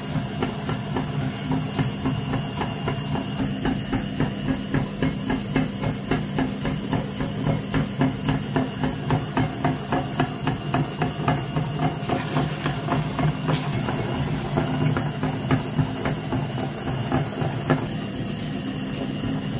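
Meat grinder running: a steady motor hum with regular knocking about three times a second as the auger turns, the knocking fading near the end.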